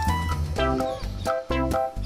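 Background music: plucked guitar-like notes over a steady bass line and beat.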